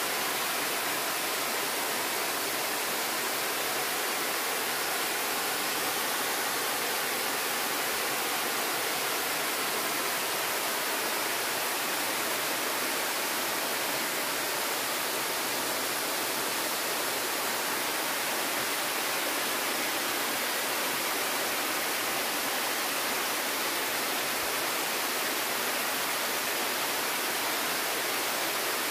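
Water cascading down a stepped stone dam spillway into a pool, making a constant, even rush.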